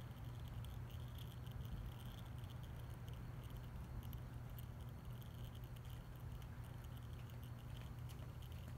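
Faint patter of used motorcycle engine oil trickling in a thin stream from the sump drain hole into a stainless steel bowl of oil, over a steady low hum.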